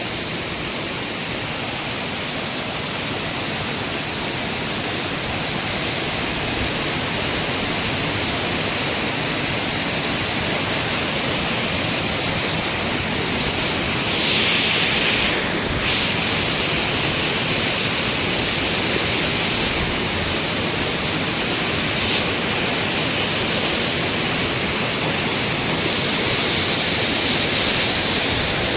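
A waterfall's water rushing down, a loud, steady, even hiss. About halfway through, the sound's character shifts briefly, then settles again.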